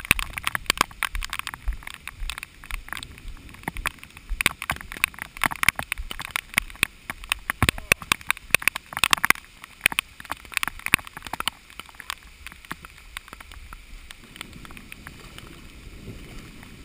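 Heavy rain and footsteps through soaked grass: dense, irregular taps and splashes that ease after about twelve seconds. Near the end a low rush of floodwater comes in.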